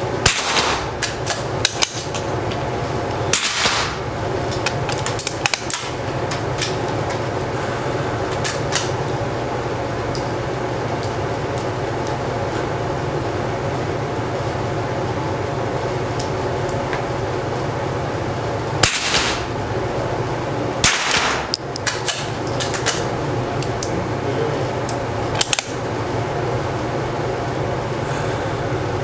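Single shots from a Schultz and Larsen .22LR smallbore target rifle, with a short ring of echo after each: two about three seconds apart at the start and two more about two-thirds through, with smaller clicks between. A steady low hum runs underneath.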